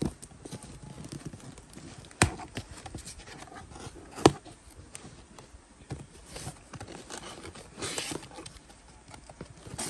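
Cardboard box being handled and opened by hand: tape pulled and flaps worked, with scattered taps and rustles and two sharp knocks, about two seconds in and again about four seconds in.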